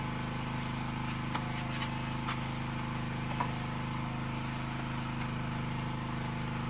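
A steady engine drone running evenly at one speed, with a few faint clicks in the first few seconds.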